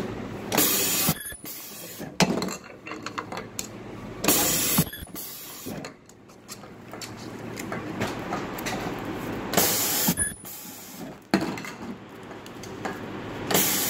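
Branson ultrasonic welding press cycling on plastic road-reflector parts: four short, loud hisses a few seconds apart, each about half a second long, with clicks and clatter from parts being handled in between.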